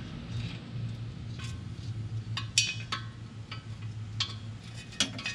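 Small wrench clinking against metal fuel-line fittings on a steel fuel tank as they are loosened: a few irregular sharp metallic clicks, over a low steady hum.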